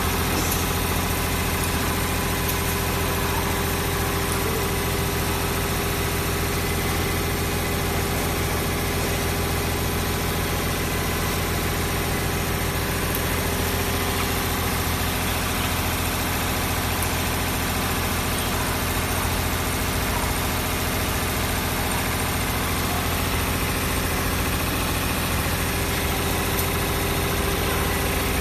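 Six-spindle CNC needle winding machine running: a steady mechanical hum with several steady tones and a strong low drone.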